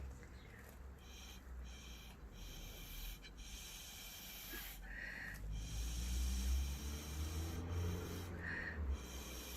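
Repeated puffs of breath blown through a drinking straw to push wet pour paint across the canvas, with short pauses between blows and a low rumble of air on the microphone.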